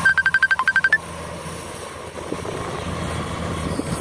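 A rapid electronic beeping tune, about a second long, made of a dozen quick beeps mostly on one pitch with one lower and a final higher note, that starts again at the end. Between the two tunes a Kubota DC105 combine harvester's engine runs steadily in the background.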